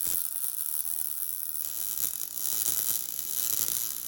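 Welding arc crackling and sizzling steadily.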